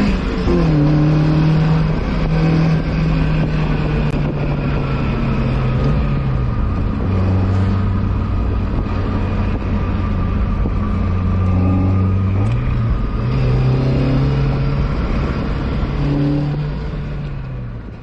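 Inside the cabin of a 1999 Mazda Miata under way, its 1.8-litre four-cylinder engine running. The engine note drops in pitch in steps as gears change, rises again about two-thirds of the way through, then falls and fades out near the end. Road noise runs underneath, with some noise coming through the open shifter opening, which has no boot.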